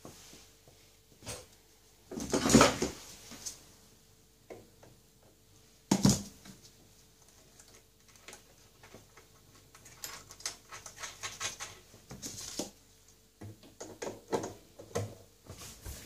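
Hands working at a washing machine's plastic outer tub. There is a rustling scrape about two and a half seconds in, then a sharp knock at about six seconds, followed by a long run of small irregular clicks and taps of plastic being handled.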